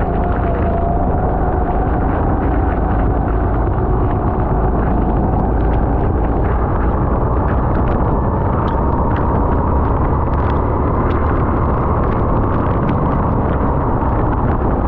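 Racing go-kart engine heard from the onboard camera, running continuously under load over a heavy low rumble. Its note dips slightly near the start, then climbs slowly as the kart drives on, with short scattered crackles over the top.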